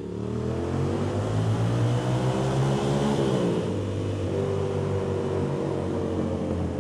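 Ducati Monster 750's V-twin engine accelerating hard, revs climbing, a gear change about three seconds in, then pulling up through the revs again, with wind rushing past an open helmet.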